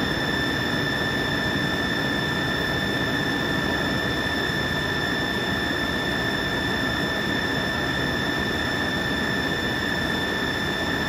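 Lucas Precision 542B-84 CNC horizontal boring mill running under power, its drive giving a steady high-pitched whine with a clear set of overtones that holds at one pitch.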